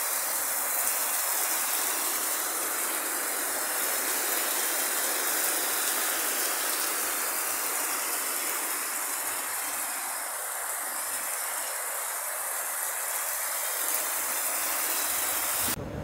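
Heavy rain pouring down, a steady dense hiss that cuts off sharply near the end.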